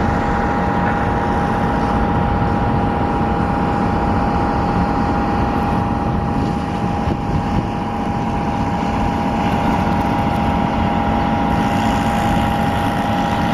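Steady engine drone with a constant hum and rumble, as from a boat's engine running underway.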